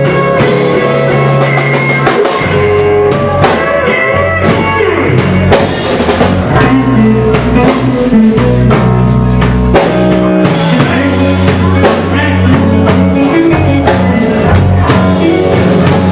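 A live blues band playing an instrumental: electric guitars over a drum kit, with the low notes of the accompaniment shifting about two and a half seconds in.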